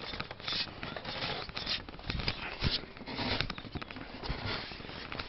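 Irregular scuffing and rustling of a climber's jacket and hands against brickwork and a terracotta ledge, with a few sharp clicks.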